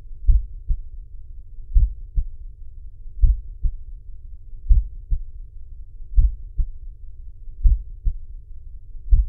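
Heart sounds: a slow, regular lub-dub, each beat a louder first thud followed by a softer second one, repeating about every one and a half seconds.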